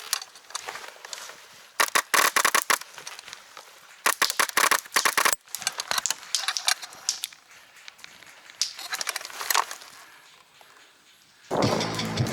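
Several bursts of rapid airsoft gunfire: dense runs of sharp cracks, each lasting about half a second to a second, the loudest around two seconds and four to five seconds in. Background music begins near the end.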